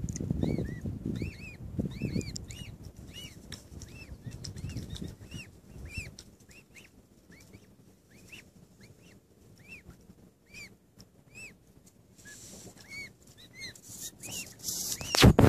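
Newly hatched mute swan cygnets peeping: short, high, arched peeps, one or two a second. A low rumble fades out over the first several seconds, and a loud burst of noise comes near the end.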